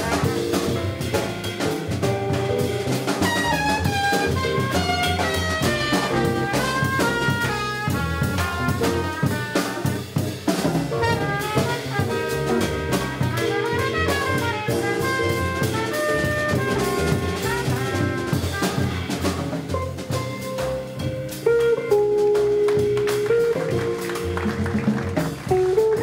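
Live jazz quartet: a trumpet leads in quick runs of notes over walking upright bass, archtop guitar and a drum kit keeping time on the cymbals.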